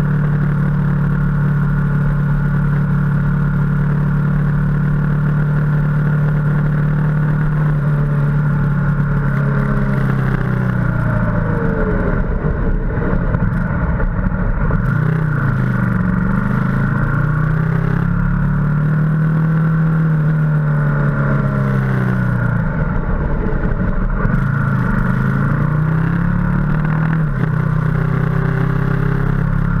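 Ducati motorcycle engine running on the road, heard from a camera mounted on the bike. Its note holds steady at first, then falls and rises again several times as the rider eases off and opens the throttle.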